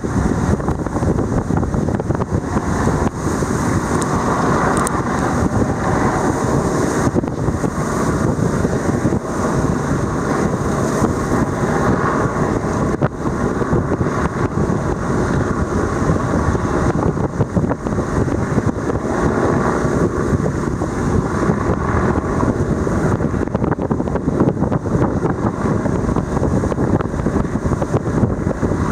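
Wind buffeting the microphone: a steady, loud, rumbling rush that flickers constantly, with no breaks.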